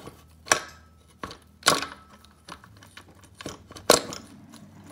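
Engine parts of a stripped Honda ATC 200x being handled on the bench: three sharp knocks, about half a second, 1.7 s and 4 s in, with lighter taps between.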